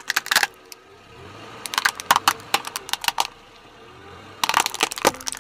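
Plastic toy dump truck cracking and snapping as a car tyre rolls over and crushes it, in three clusters of quick sharp cracks.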